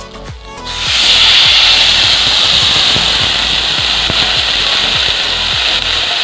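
Water poured into a hot metal wok of fried spices and rice, setting off a loud steady hiss of sizzling steam that starts suddenly about a second in.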